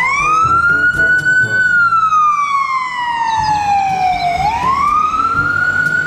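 Ambulance siren on the wail setting: the pitch climbs, sinks slowly for about three seconds, then climbs again near the end.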